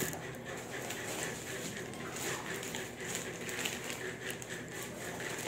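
Faint rustling and crinkling of plastic parcel packaging being handled, a few soft rustles over a steady background hiss.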